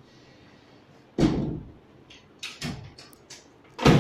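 Wooden panels of a wall-folding Murphy bed knocking as it is pushed shut into its cabinet: a thud about a second in, a few lighter knocks, then a louder thud near the end.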